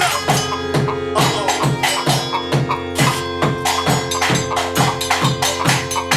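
Improvised live noise-percussion music: a steady rhythm of sharp, woody knocks over sustained droning tones and a low hum.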